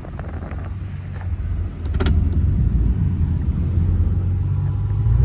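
Pickup truck engine running, heard from inside the cab, with a steady low hum. About two seconds in there is a sharp knock, and the engine gets louder.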